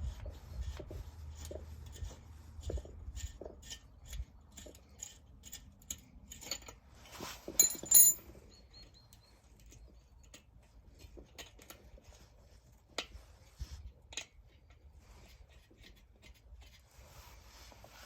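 Small metal tools and parts clicking and clinking as a diesel heater is worked on by hand, with a loud ringing metallic clink about eight seconds in, then only scattered clicks.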